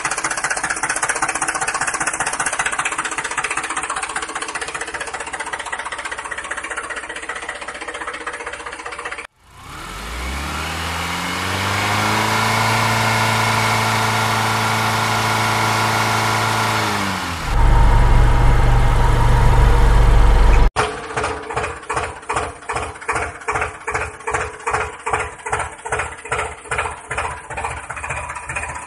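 Engine sound effects cut together with sudden breaks: a rough-running engine, then an engine starting and revving up to a steady pitch, a short loud low hum, and finally an engine chugging at about two and a half beats a second.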